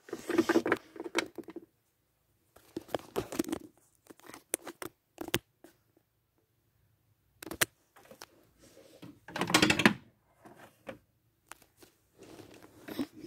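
Handling noise from a hand moving small plastic Littlest Pet Shop toy figures around a dollhouse floor and from the phone being handled: short bursts of rustling and light tapping, with one sharp click about halfway through.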